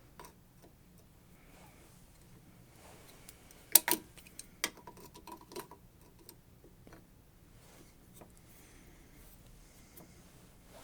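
Light metal clicks and clinks from tools and small parts being handled at a workbench, with a sharp double clack about four seconds in as the loudest sound and a few smaller taps after it.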